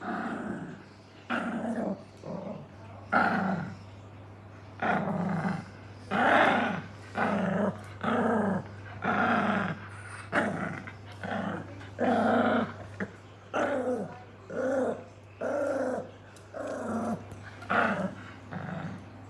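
Yorkshire terrier play-growling while tugging on a rope toy, a long series of short growls about one a second.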